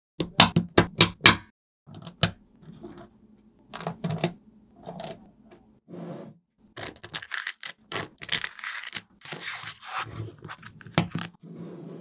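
Small metal magnetic balls clicking as they snap together. About five sharp clicks come in quick succession at the start. Scattered clicks and a rattling, scraping clatter follow as the slab of balls is pressed and handled.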